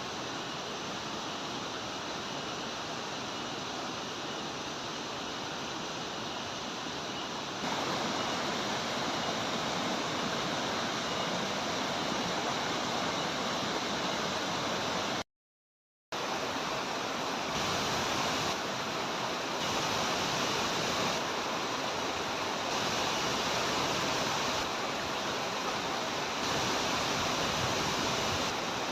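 Steady rushing of a tall waterfall, an even roar of falling water with no tones in it. It steps louder about a quarter of the way in and drops out for under a second about halfway.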